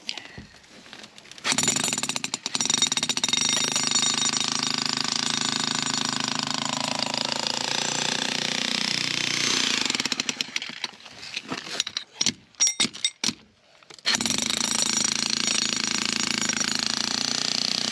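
Heavy-duty electric breaker hammering into a concrete driveway slab. It starts about a second and a half in and runs steadily, then breaks into a few short bursts with pauses, and runs steadily again for the last few seconds.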